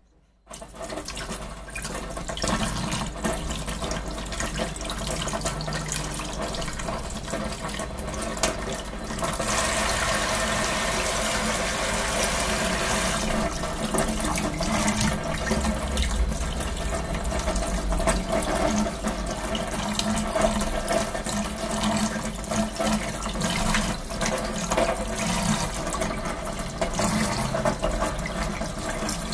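Tap water running into a sink while fish pieces are washed: a steady rush that starts just after a short silence and grows louder about nine seconds in.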